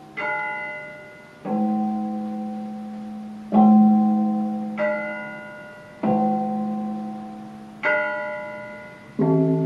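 Electronic keyboard playing slow chords, a new one struck about every second and a half, each ringing on and fading away before the next.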